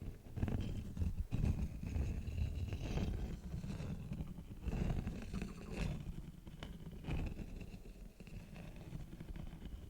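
Beeswax wrap being crinkled and handled: irregular crackles and rustles over a low handling rumble, thinning out near the end.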